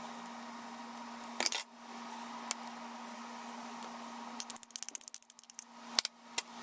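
Scattered small clicks and taps of objects being handled, with a quick rattling run of clicks about two-thirds of the way in, over a steady electrical hum.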